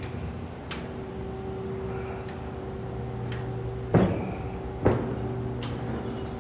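Steady hum of engine-room machinery, with two loud knocks just under a second apart about four seconds in and a few faint clicks.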